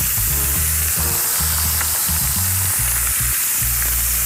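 Thin strips of chicken breast sizzling as they fry in margarine and butter in a very hot ceramic frying pan. Background music plays underneath, with low bass notes.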